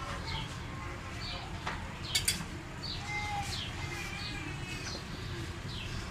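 A small bird chirping over and over, short calls that fall in pitch, with a couple of sharp clicks about two seconds in.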